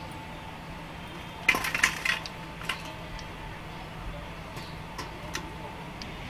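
Wire-mesh skimmer clinking against a stainless steel bowl as fried vadas are tipped out of it: a quick cluster of metallic clinks about a second and a half in, then a few lighter single taps.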